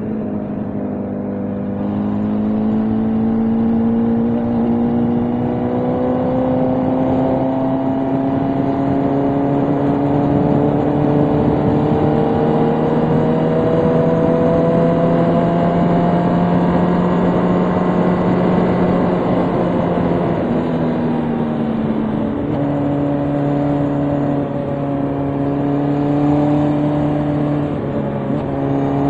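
Motorcycle engine running on the road, its pitch climbing slowly for about twenty seconds, dropping briefly, then holding steady, under a constant rush of wind noise.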